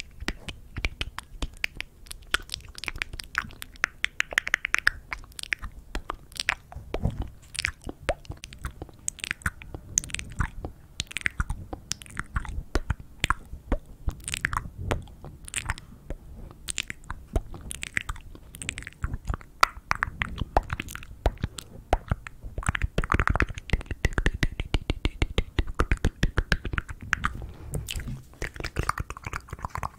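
ASMR wet mouth sounds: a quick, irregular run of lip and tongue clicks and pops made right into a microphone, with a hand cupped around the mouth.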